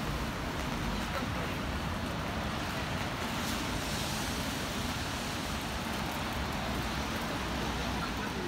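Steady city-street ambience in the rain: an even hiss of rain and wet traffic over a low rumble of road traffic.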